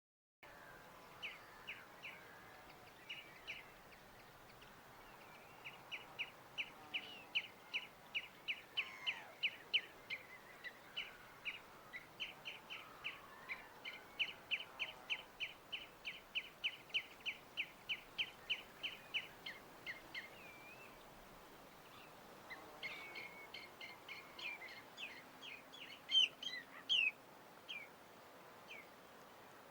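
Small birds chirping: one repeats a short high note about two to three times a second for some fifteen seconds, with scattered chirps around it and a louder flurry of calls near the end, over a faint steady background hiss.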